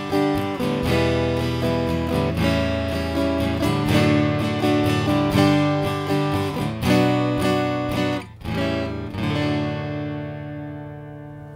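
Taylor acoustic guitar strumming a chord passage, heard through its pickup and the K4 equalizer with every EQ control set flat: the plain reference tone. Near the end the last chord is left to ring and fade.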